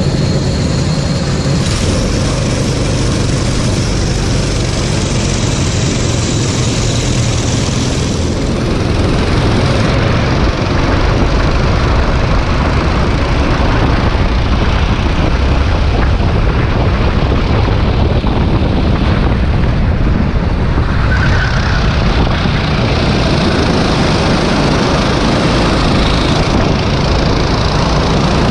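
Racing kart engine heard onboard, pulling away from a standstill at the start of a race and then running at speed among other karts; the sound gets louder about a third of the way in.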